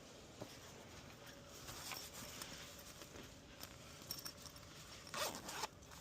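Faint handling noises: scattered small clicks, then a brief louder rasping rustle about five seconds in.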